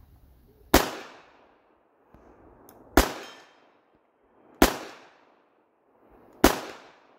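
Four shots from a .380 ACP handgun, fired at a steady pace about one and a half to two seconds apart, each a sharp crack with a short echo trailing off.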